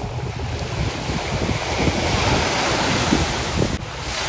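Small sea waves washing onto a sandy beach, with wind buffeting the microphone in gusts; the sound dips briefly near the end.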